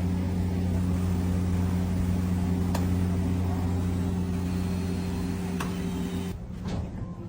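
Steady low hum of an idling train engine, with a couple of faint clicks. It cuts off abruptly about six seconds in.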